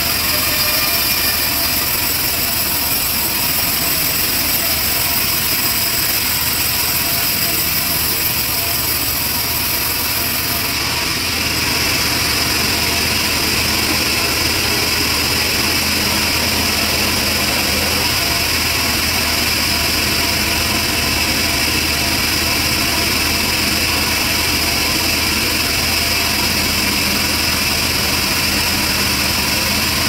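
Band sawmill running steadily, its blade ripping lengthwise through a trembesi (rain tree) cant, with a steady hiss from the cut over the hum of the mill's drive. Part of the high hiss drops away about eleven seconds in.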